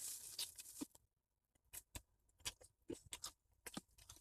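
A person eating close to the microphone: a soft rustle that fades within the first second, then scattered faint clicks and small crunches of chewing.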